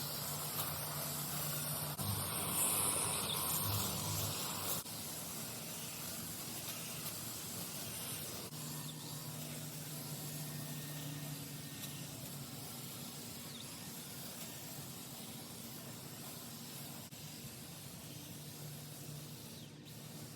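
Stihl KMA 130 R battery-powered hedge trimmer, its extension shears running and cutting back grasses. It gives a low steady hum that comes and goes over a hiss, louder for a couple of seconds early on and then easing off.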